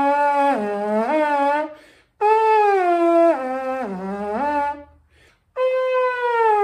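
3D-printed PLA bugle blown through a metal mouthpiece: three blown notes of about two seconds each that bend and slide in pitch instead of jumping between set notes, the last one gliding steadily downward. It does not have the harmonics, a fault the maker puts down to air escaping through the porous PLA tubing.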